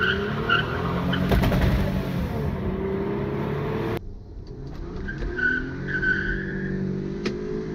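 Toyota Camry V6 engine revving hard under acceleration, heard from inside the car, its pitch rising and falling. A thin high squeal comes and goes, briefly near the start and again past the middle, and the sound jumps at an edit about four seconds in.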